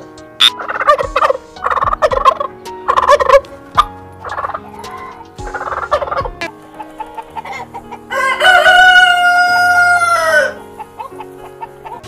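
Turkey gobbling in several short rattling bursts, then a rooster crowing once in one long call about eight seconds in, over soft background music.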